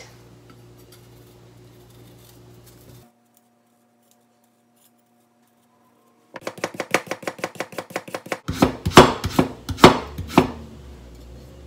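Kitchen knife cutting carrot: a fast, even run of light knife clicks as a carrot piece is peeled into a thin sheet, then louder, irregular chops of the blade through the carrot onto a plastic cutting board.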